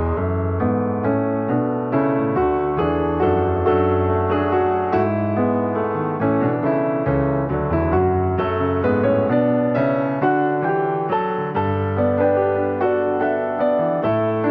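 Soft piano music, a steady flow of notes over sustained low chords.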